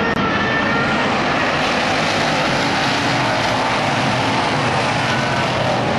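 A field of street stock race cars running hard on a dirt oval track, their many engines blending into one loud, steady sound.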